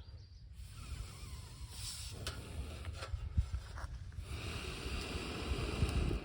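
Campfire of gathered wood burning: a few sharp crackles and pops over a breathy rushing of flame that swells in the second half, with a low rumble underneath.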